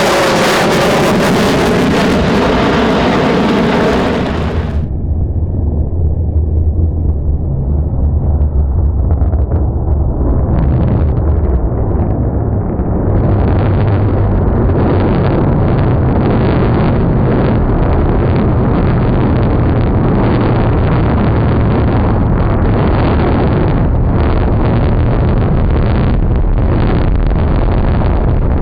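Jet engine noise from the F-22 Raptor's two Pratt & Whitney F119 turbofans: a loud, full-range roar for the first few seconds that cuts off abruptly, then a steady deep rumble for the rest.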